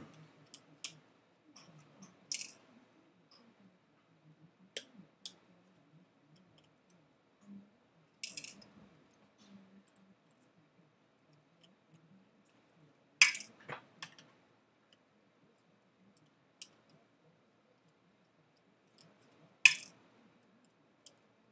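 Small metal clicks and clinks from a screwdriver working the tiny bezel-frame screws of a MacBook LCD and setting them down. The sharp ticks come one at a time, spread out with quiet gaps between them, and the loudest fall about two-thirds of the way in and near the end.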